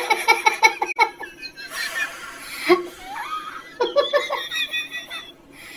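A person laughing in quick bursts at the start, then again about four seconds in.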